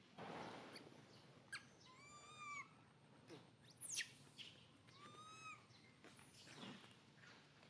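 Baby macaque giving faint, high, arched cooing calls, each about half a second long, once about two seconds in and again about five seconds in, with a few short rising squeaks between.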